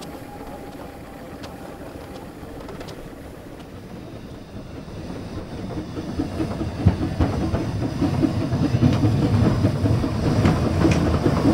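Narrow-gauge steam locomotive pulling a train away, its exhaust chuffing in a quick even beat over the rumble of the train. It grows louder from about halfway through.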